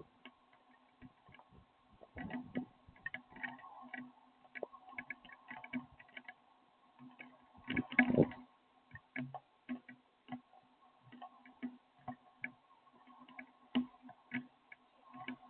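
Raindrops dripping, making irregular light taps and clicks on a hard surface, with a louder knock about eight seconds in, over a faint steady hum.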